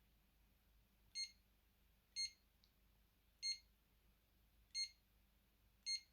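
Alcatel One Touch Easy mobile phone giving five short, identical high beeps at slightly uneven intervals of about a second, like key-press beeps while its menu is stepped through.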